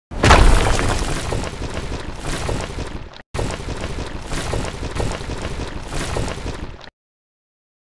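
Intro sound effect of a wall bursting and crumbling: a sudden loud crash, then rumbling, hissing debris noise. It breaks off for a moment a little past three seconds, goes on, and stops about a second before the end.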